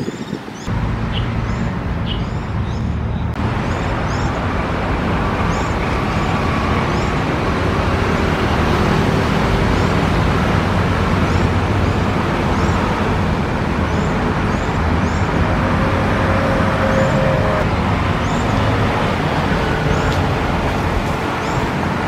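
Steady road-traffic rumble that swells in about a second in and holds level, with short high chirps now and then above it.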